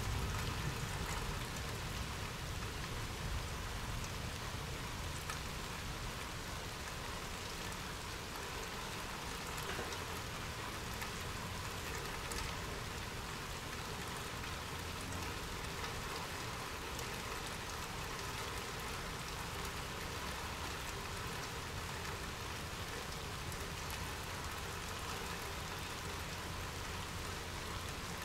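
Steady rain falling, an even hiss with some low rumble underneath, slightly louder in the first few seconds, and a few sharper drop ticks.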